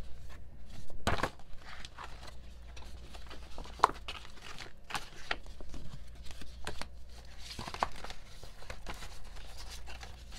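K-pop album inclusions being handled: paper and packaging rustling and crinkling, with scattered taps and clicks and one sharper click about four seconds in.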